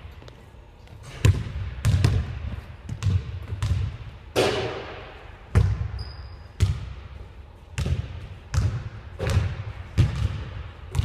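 Basketball bouncing on a hardwood gym floor: about a dozen sharp thuds at uneven intervals, each echoing in the large hall.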